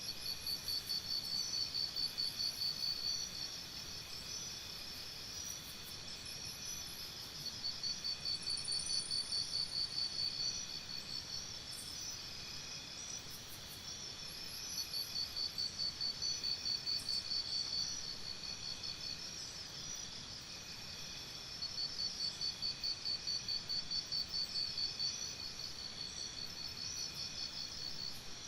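Forest insect chorus: a steady high buzzing, with a loud pulsing trill that comes in bouts of about three seconds, roughly every seven seconds, and a few brief, faint, higher chirps.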